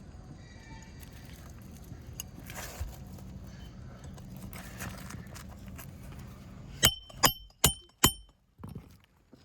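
Roofing hammer driving a nail to fasten a replacement asphalt shingle: four quick ringing metal strikes about 0.4 s apart near the end, after several seconds of low rustling from handling the shingles.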